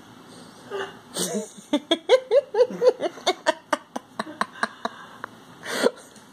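Domestic cat licking liquid off its paw: a quick run of wet licking clicks, about five a second, lasting about three seconds. A short breathy puff comes near the end.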